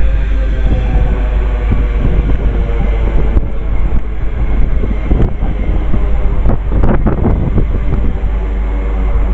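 Wind buffeting the microphone over the rumble of a passing train, with a few sharp clicks in the second half.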